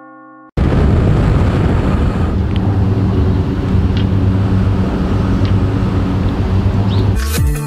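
Loud wind buffeting the microphone, a steady low rumble with hiss, cutting in suddenly about half a second in after a fading bell tone. Electronic music with a beat starts near the end.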